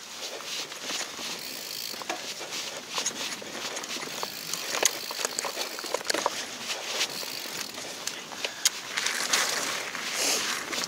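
Mountain bike rolling down a dirt trail: steady tyre noise with frequent sharp clicks and rattles from the bike over bumps. Near the end the tyre noise grows louder as it crosses gravel.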